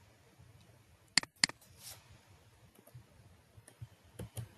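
A few keystrokes on a computer keyboard: two sharp clicks about a quarter second apart a little over a second in, then a softer tap and a few faint ticks.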